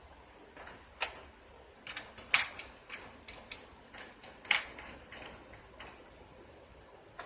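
Irregular sharp clicks and light taps of small hard parts being handled by hand inside an open Dell PowerEdge R710 server during CPU removal. The loudest come about a second in, near two and a half seconds and near four and a half seconds.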